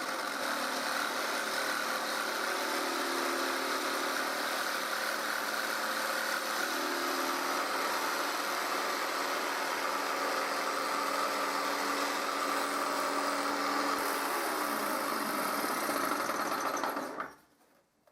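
Jigsaw with a metal-cutting blade, mounted in a jigsaw table, running steadily while it saws through thin metal sheet: a dense, even rasping buzz that stops near the end.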